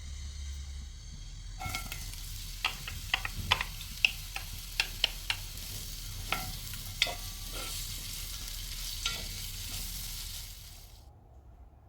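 Food sizzling in a hot pan while being stirred, the utensil clicking and scraping against the pan a dozen or so times. The sizzling starts about a second and a half in and cuts off suddenly near the end.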